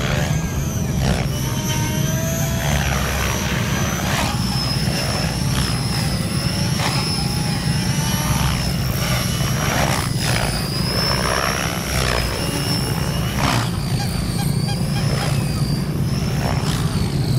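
Align T-REX 600ESP electric RC helicopter flying aerobatics: a high motor whine that wavers up and down in pitch, with a rushing blade sound surging every few seconds as the rotor swoops and loads up.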